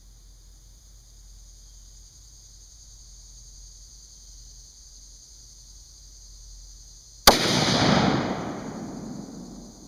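.30-06 rifle firing a single shot about seven seconds in: a sharp crack followed by a loud rumbling tail that fades away over about two seconds.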